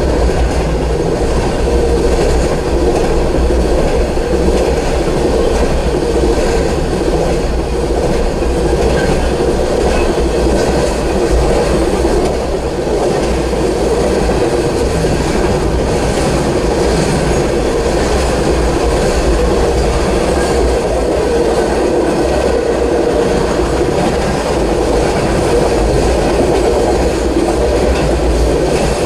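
Norfolk Southern intermodal freight train, flatcars loaded with highway trailers, rolling steadily past a grade crossing: a continuous rumble of steel wheels on rail with clickety-clack from the rail joints.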